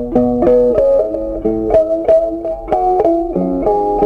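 Instrumental background music of plucked string notes in a steady rhythm.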